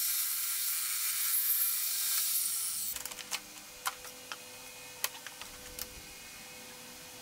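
Table saw blade cutting a pallet board, a loud hissing whir that stops abruptly about three seconds in. After that come scattered light clicks and knocks as the hold-down clamps and boards are handled.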